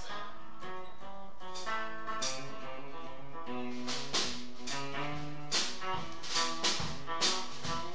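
Live band music: plucked guitar notes, with sharp percussion hits that come more often in the second half.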